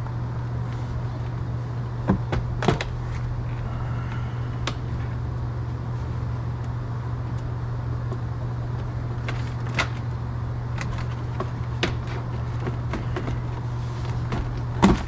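Scattered plastic clicks and knocks from a 2015 Toyota Corolla's glove box being fitted back into the dashboard and lined up, the loudest a sharp knock near the end, over a steady low hum.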